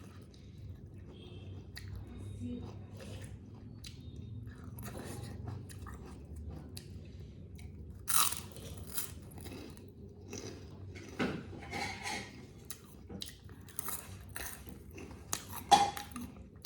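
Close-miked chewing and mouth sounds of someone eating chicken curry and rice, with scattered sharper smacks and crunches. The loudest come about halfway through and near the end.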